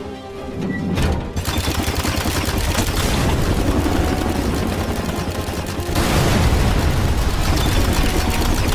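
Rotary multi-barrel machine gun firing a long continuous burst of rapid shots, starting about a second in, with explosions going off among the shots.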